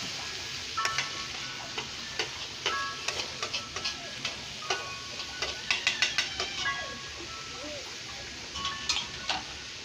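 Spatula scraping and knocking against a pan while stir-frying green beans and carrots, irregular clatters, some with a brief ring, over a low steady sizzle of the vegetables frying in oil.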